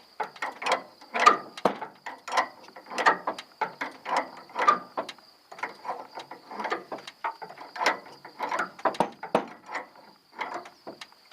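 Bottle jack being pumped by hand under load, jacking up a car's rear unibody frame: a run of ratcheting clicks and knocks from the jack and its handle, about two a second, uneven in strength.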